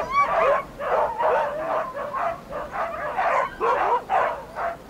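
A team of harnessed sled huskies yipping, yelping and whining in a dense overlapping chorus, several calls a second. The dogs are keyed up and eager to run.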